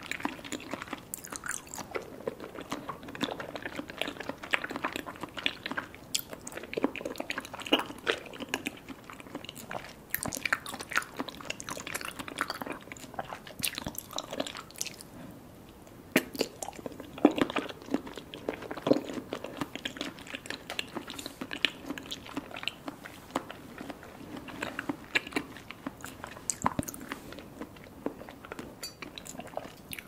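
Close-miked chewing of Kyoho grape jelly: wet, squishy mouth sounds with many sharp clicks and smacks. There is a brief lull about halfway through, then a fresh bite.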